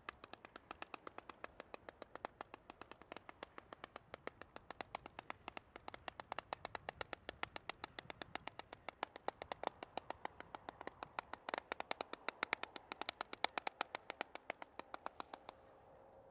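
Pyro King 'Just Giv'r' multi-shot fireworks cake firing a rapid, even string of shots, about five pops a second. The pops get louder in the second half and stop shortly before the end.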